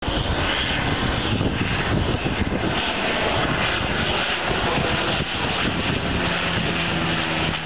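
Canadair CL-415 water bomber flying low overhead, its twin turboprop engines and propellers making a loud, steady noise. A low humming tone from the propellers comes in near the end.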